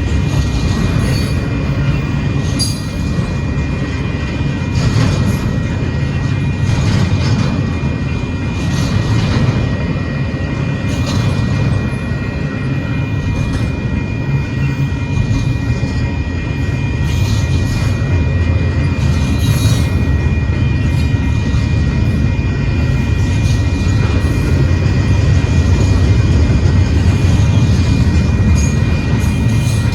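Union Pacific intermodal freight train rolling past, a steady heavy low rumble with scattered sharp clicks from the wheels. A thin steady high whine sits over it.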